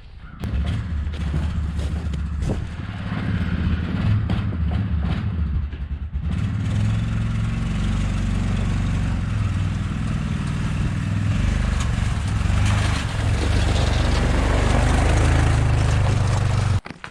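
A motor vehicle's engine running steadily, with a deep hum. It starts suddenly, falters briefly about six seconds in, then runs on louder before stopping abruptly near the end.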